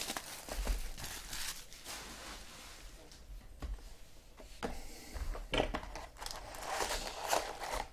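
Plastic wrapping crinkling and tearing as sealed trading-card boxes and packs are opened by hand, in short irregular rustles that grow busier near the end.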